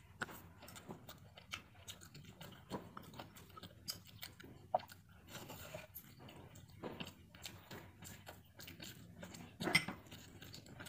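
Quiet, close chewing and biting of salt-and-chili fried barramundi and rice, with scattered small crunches and wet mouth sounds. A louder burst comes near the end.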